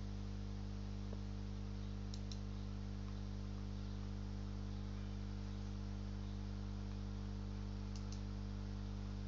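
Steady low electrical hum on the recording line, with faint double mouse clicks about two seconds in and again near the end.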